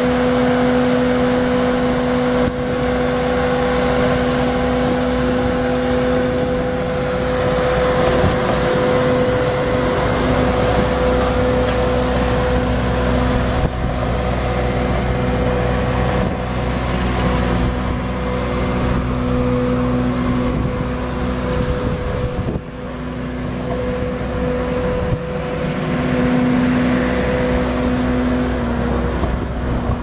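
Bobcat T650 skid steer's Kubota V3307 3.3-litre four-cylinder turbo diesel running steadily, with a steady droning tone over the engine noise. The level dips briefly about two-thirds of the way through.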